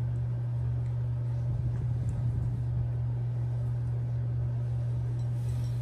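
Domestic cat purring while being stroked: a steady low rumble with a slow, regular in-and-out pulse.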